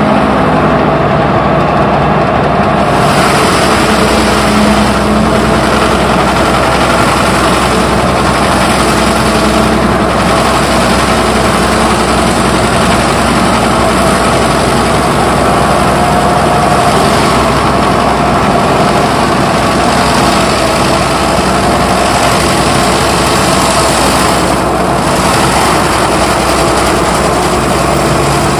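Heavy excavator's diesel engine running loud and steady at constant speed, without revving up or down.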